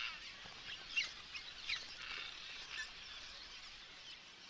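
Cliff swallows calling at their mud-nest colony: a soft, steady twittering chatter with a few short, sharp chirps, fading near the end.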